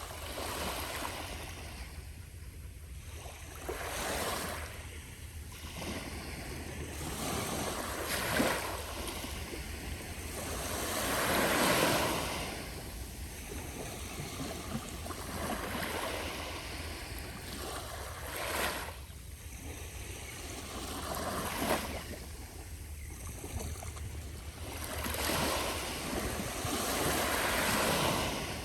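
Small, gentle ocean waves breaking and washing onto the beach of a very calm sea, each wash swelling and fading every few seconds, with a steady low rumble of wind on the microphone beneath.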